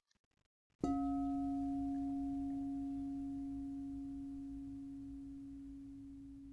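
A singing bowl struck once just under a second in, ringing a single low, steady tone that slowly dies away, with fainter higher overtones that fade out sooner.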